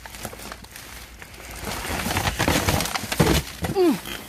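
Cardboard boxes and plastic packaging rustling, scraping and crackling as they are shifted by hand, louder from about two seconds in. A short falling pitched sound comes near the end.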